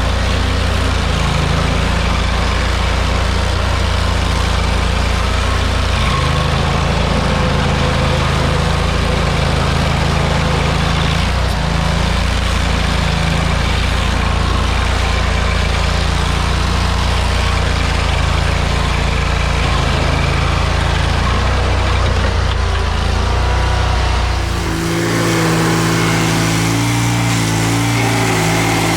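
Gasoline engine of a stump grinder running steadily with a low, even hum. About 25 seconds in, the sound changes abruptly: the deepest hum drops out and a higher engine note takes over.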